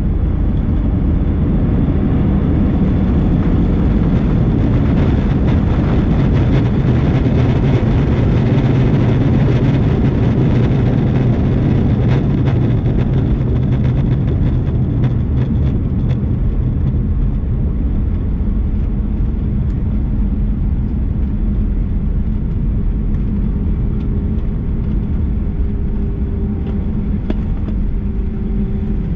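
Airbus A319 jet noise heard from inside the cabin: a loud, steady rumble with a rushing hiss. The noise swells about three seconds in and eases after about fifteen seconds.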